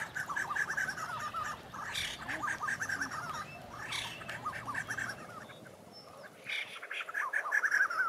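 White-crested laughingthrushes calling: fast runs of chattering notes repeated in bursts, dropping off briefly about six seconds in and picking up again near the end.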